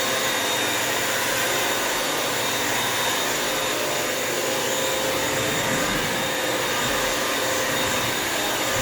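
Bissell vacuum-mop running steadily as it wet-cleans the floor: an even rush of suction with a constant motor whine.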